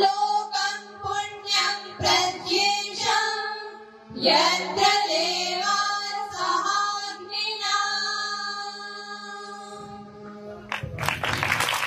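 Girls singing a song together in drawn-out phrases over a steady drone. About eleven seconds in the singing ends and a short burst of clapping follows.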